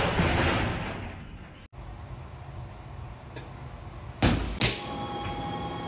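Two hard thumps about a third of a second apart near the end, blows landing on a freestanding punching dummy, over a low hum. A rushing noise fades out at the start.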